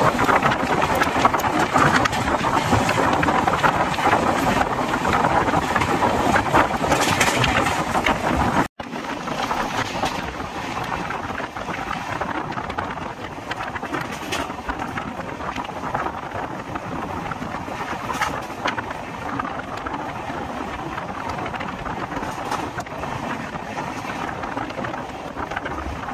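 Ernakulam–Tatanagar Express running, heard from on board: a steady rush of wheel and wind noise. It drops out for an instant about nine seconds in, then carries on quieter.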